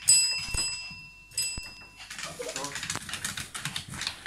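A tap bell struck twice by a dog's paw, each ding ringing on and fading; the dog rings it to call for its food. From about halfway on, rapid clicking and scuffling of dogs' claws on a tiled floor as the dogs dash about.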